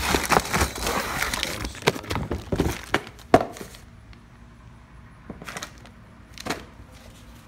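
Clear plastic parts bags holding small hardware crinkling and rustling as they are handled, with sharp clicks and snaps. The crackle is densest in the first few seconds, with the loudest snap a little past halfway through it, then it thins to a few isolated clicks.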